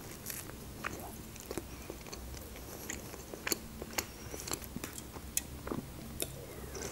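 Close-miked mouth sounds of a person chewing a doner wrap: faint, scattered wet clicks and smacks, ending with a sip from a drink can.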